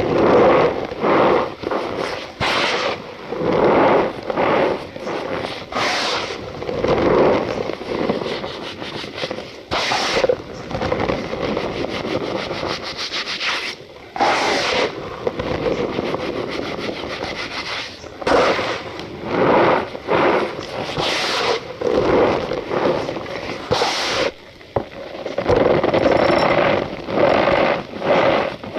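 Cornstarch powder being squeezed and rubbed by hand, a steady crunchy squeaking with louder surges every few seconds.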